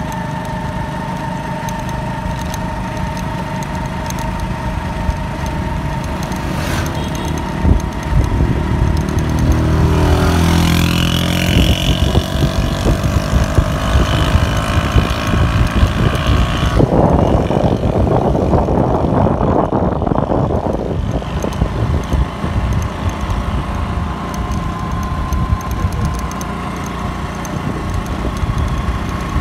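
Motorcycle engine running while riding along a road, with wind noise. The engine's pitch shifts up and down about ten to twelve seconds in, and a rush of noise comes through for a few seconds past the halfway point.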